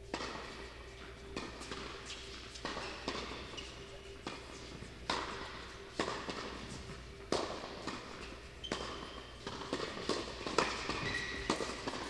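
Tennis ball being struck by rackets and bouncing on the court during play: a string of sharp knocks about every second or so.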